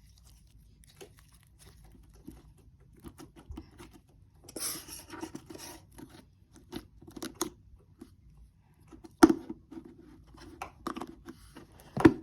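Hands squishing, stretching and tearing a very sticky store-bought slime: scattered wet clicks and crackles, with two sharp pops, one about nine seconds in and one near the end.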